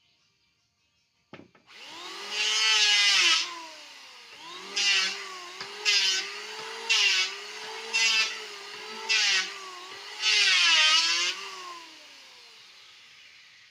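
Electric hand planer started with a click, spinning up, then shaving wood in seven passes: one long, five short and one long. The motor's pitch dips under each cut, and it winds down near the end.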